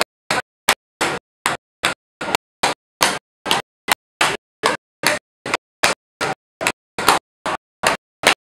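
Tap shoes striking a tap board in a steady, even rhythm of sharp clicks, about two and a half a second.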